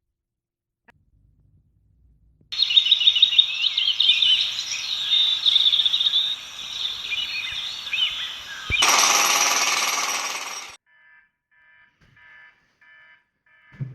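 Birds chirping busily for about six seconds, cut off by a loud, harsh alarm-clock buzz lasting about two seconds, then faint rapid electronic beeping.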